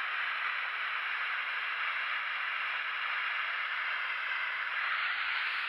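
Steady rush of water pouring over a dam, an even hiss with no rhythm that eases slightly at the very end.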